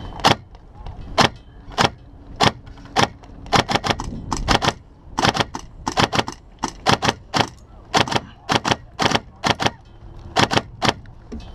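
Airsoft gunfire: an irregular string of about thirty sharp cracks, some single and some in quick pairs and triples.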